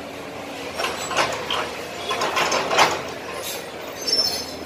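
Excavator demolishing a building: a run of irregular crunching and clattering of breaking masonry and debris, the loudest crash about three seconds in, followed near the end by a brief high metallic squeal.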